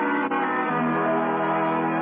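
Radio-show music cue: held chords from instruments, moving to a lower chord under a second in. It marks the bridge from the commercial into the story.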